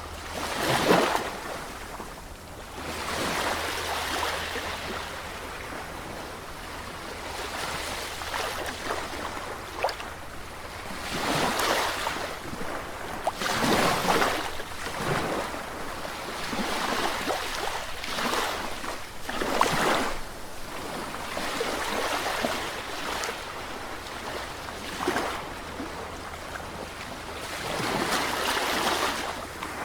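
Sea waves breaking and washing up on the shore, each surge rising and falling away every few seconds, the loudest crash about a second in.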